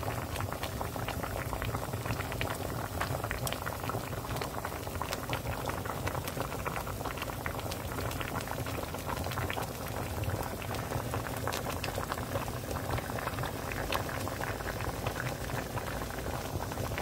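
Pot of ugeoji gamjatang (spicy pork-bone soup) boiling, bubbling steadily with many small pops.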